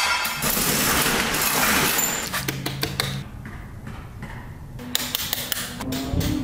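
Steel roll-up door being raised, its metal slats rattling and clattering, loudest for the first couple of seconds, then quieter scattered clanks and knocks.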